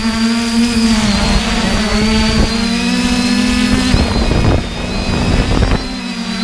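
Multirotor drone motors and propellers hum steadily, the pitch wavering up and down as the throttle changes, with a high whine from the motors over it. Wind rumbles on the microphone and eases briefly near the end.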